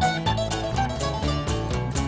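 Background instrumental music: a quick run of short pitched notes over a steady bass line.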